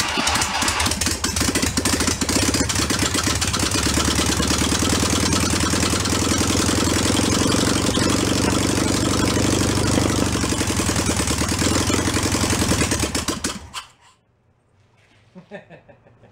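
Air-cooled VW Beetle flat-four engine running on its own on an engine stand: a barn-find engine that had long refused to stay running. It runs steadily for about 14 seconds, then stops abruptly, leaving a few faint ticks.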